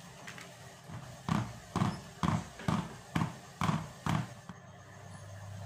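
A plastic tube cake pan full of batter rapped down on a tabletop about seven times, roughly twice a second: the usual way to settle the batter and knock out air bubbles before steaming.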